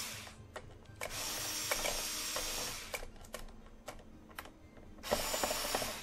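Worx WX255L 4V cordless screwdriver running in short bursts, backing out the screws on the underside of a Roomba: a brief run at the start, a longer run of about two seconds from about a second in, and another near the end, with several sharp clicks in between.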